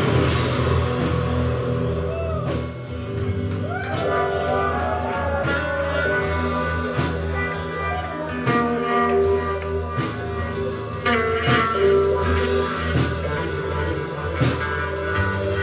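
A live blues-rock duo playing an instrumental passage: a guitar lead with notes that glide up and down, over a drum kit keeping a steady beat.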